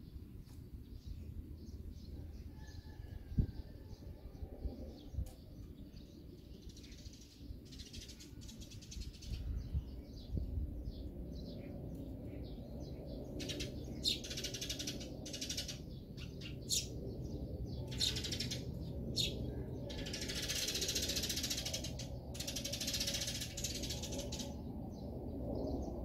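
Eurasian tree sparrows at a seed feeder: scattered sharp clicks of beaks pecking at the seed, with several rustling bursts of wing fluttering lasting a second or two each and a few chirps.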